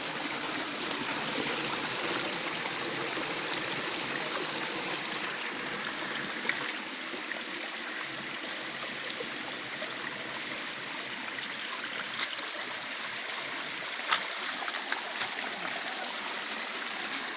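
Flowing stream water, a steady rushing, with a few short splashes or knocks at about six and a half, twelve and fourteen seconds in.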